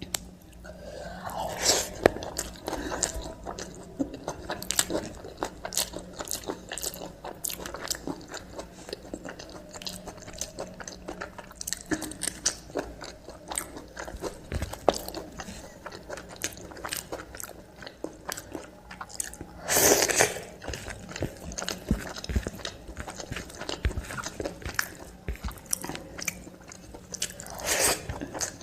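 Close-miked ASMR eating: a person biting and chewing food such as matar paneer, veg pulao and aloo tikki, with a steady stream of small wet mouth clicks and occasional crunches. Louder bursts come about two seconds in, at about twenty seconds and near the end.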